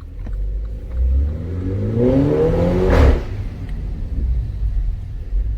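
Mini Cooper engine revved once, climbing for about two seconds, then a sharp exhaust pop as the throttle shuts. It then settles back to a low idle rumble.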